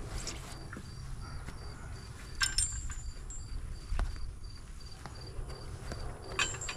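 Insect chirping in a steady pulsing pattern, about three high pulses a second, over a low rumble. A few sharp clicks come about two and a half and four seconds in.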